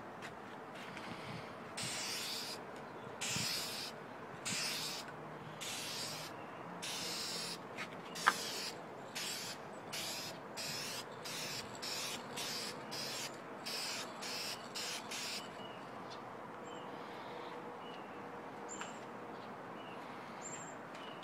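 Aerosol spray can hissing in about twenty short bursts, which get shorter and quicker and stop about fifteen seconds in. One sharp tick about eight seconds in is the loudest moment.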